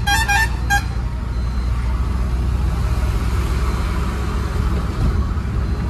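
Truck engine and road noise heard from inside the cab, a steady low rumble. For about the first second a horn sounds in a rapid string of short beeps, then stops.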